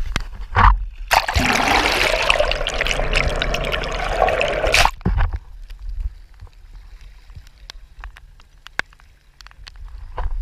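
Seawater rushing, splashing and gurgling over a camera dipped into the sea beside the boat. It is loud for about four seconds, then drops to a quiet low rumble with scattered small clicks.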